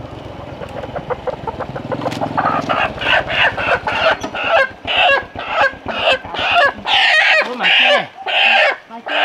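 A domestic chicken squawks loudly and repeatedly, about twice a second from about three seconds in, as it is pulled out of a woven bamboo cage and held by hand. In the first few seconds a motor scooter's engine runs, then stops.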